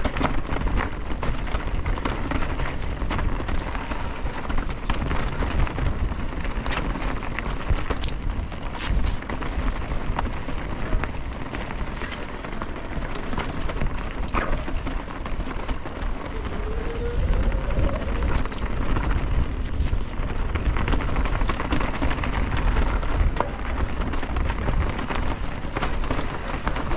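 Mountain bike being ridden over a rough, rocky trail: the tyres run over rock and loose stones and the bike clatters constantly over the bumps, over a steady low rumble. A short rising squeak comes about seventeen seconds in.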